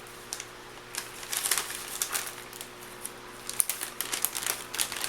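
Plastic packaging crinkling and crackling in irregular handfuls as it is handled.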